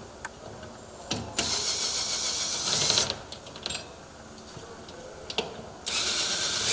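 Glass and screen inserts being slid out of a metal security door: two bursts of scraping and rattling, the first about two seconds long and the second about a second, with scattered clicks between.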